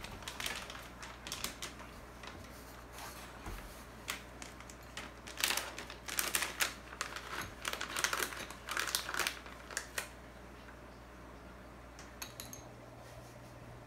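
Plastic treat bag crinkling and rustling in a hand in irregular bursts, loudest in the middle, then stopping; a few faint clicks near the end.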